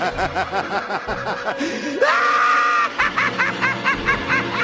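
People laughing loudly in quick 'ha-ha' pulses, with a high, shrieking laugh held for about a second about two seconds in.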